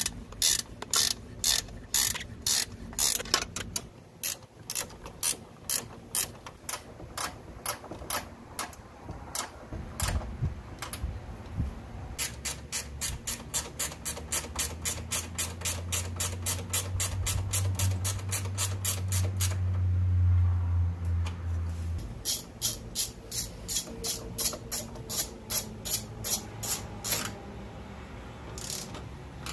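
Ratchet wrench clicking in quick even runs as bolts are run in, with short pauses between runs. A low steady hum sounds under the clicks from about ten seconds in and cuts off suddenly about twenty-two seconds in.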